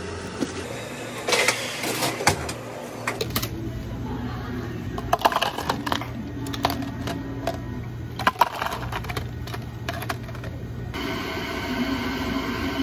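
Ice cubes clattering into clear plastic cups in a run of sharp clinks, over a steady low hum of café equipment. Near the start there are knocks from a bagel being handled on a wooden board, and near the end the sound changes to a smoother pour as milk goes over the ice.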